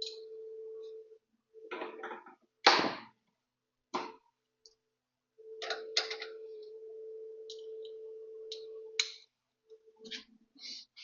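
A small power tool whirring in short runs, the longest about four seconds, with sharp metallic clanks between them, the loudest about three seconds in, while a suspension part is fitted and tightened.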